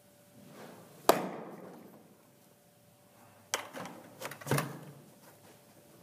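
A pitched baseball popping sharply into a catcher's mitt about a second in, the loudest sound, with a short echo off the walls of an indoor cage. A few softer knocks and thumps follow a couple of seconds later.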